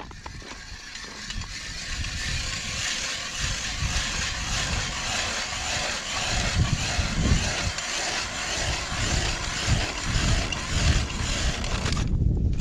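Ice auger boring a hole through lake ice: a steady scraping hiss of the blades shaving ice, with irregular low thumps, stopping about twelve seconds in as the auger breaks through.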